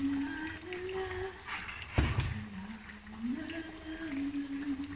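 A voice humming a slow tune in held notes, with one sharp knock about two seconds in.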